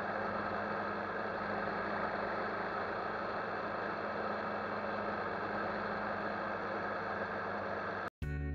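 KTM 1190 Adventure's 1195 cc V-twin engine running steadily at cruising speed, with a constant rush of wind and road noise. Just after eight seconds the sound cuts off abruptly and guitar music begins.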